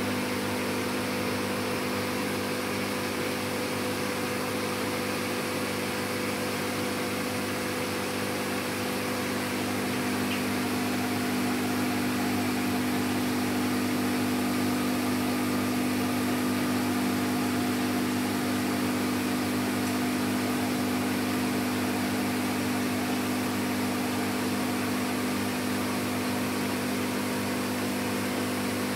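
Steady electric hum of an aquarium air pump with the hiss of air bubbling up through a sponge filter.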